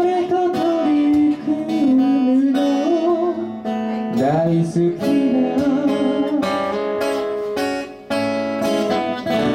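Two acoustic guitars played live, plucked and strummed, with a man singing a slow melody over them; the vocal line pauses briefly about four seconds in and comes back.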